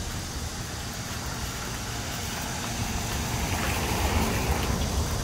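A motor vehicle's engine rumbling over street noise, growing louder through the second half.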